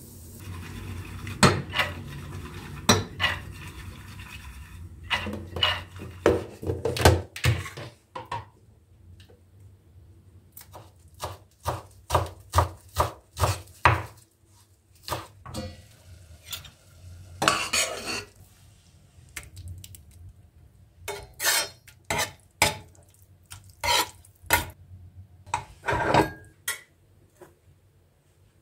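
Cutlery and cookware clinking and knocking as they are handled, in many sharp, irregular knocks. For the first five seconds a steady hiss runs under the knocks.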